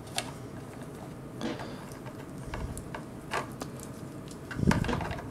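Scattered small plastic clicks and taps as a roughly 6-inch action figure is handled and its joints are posed, with a louder muffled handling bump about four and a half seconds in.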